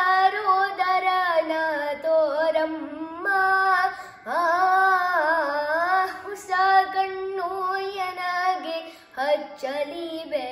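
A boy singing a Kannada devotional song solo, drawing out long held notes that bend and waver in pitch, with short breaths between phrases.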